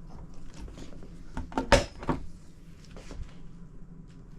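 A few soft clicks and knocks of objects being handled, the loudest a sharp knock just under two seconds in.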